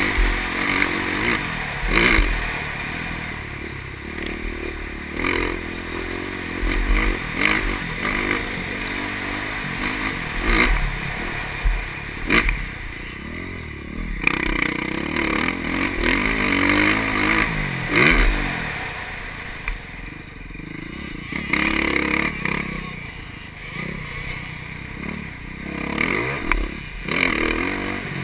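KTM motocross bike's engine revving up and down again and again as it is ridden hard around a dirt track, with frequent sharp knocks and clatter.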